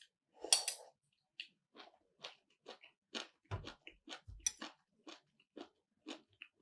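A person chewing food close to the microphone: soft, irregular crunchy mouth clicks, roughly two or three a second, with two dull low thumps a little past halfway.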